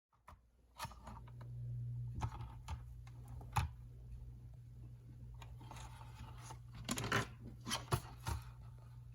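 Scattered clicks and taps of small parts being handled and fitted during work on an RC car, over a steady low hum. The taps bunch together near the end.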